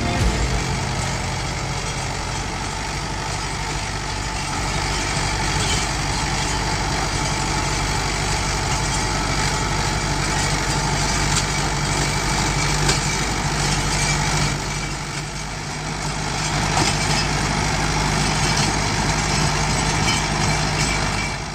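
Mahindra Novo 755 DI tractor's diesel engine running steadily while it drives a Shaktiman Champion rotavator tilling soil, with the churn of the rotavator mixed in. The sound eases off briefly about fifteen seconds in, then comes back up.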